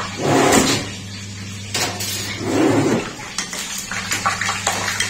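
A metal spoon scrapes and clinks against a kadhai as dried lentil badi are stirred while they fry. There are two longer scrapes in the first three seconds, then a run of quick clinks, all over a steady low hum.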